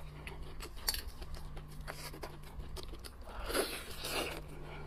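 Close-miked biting and chewing of steamed lobster meat: soft wet mouth sounds with small clicks, swelling twice, about three and a half and four seconds in.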